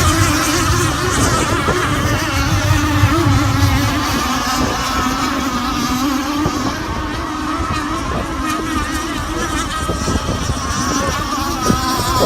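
Radio-controlled race boats' small engines running at high revs as they race, a steady buzzing whine whose pitch wavers up and down.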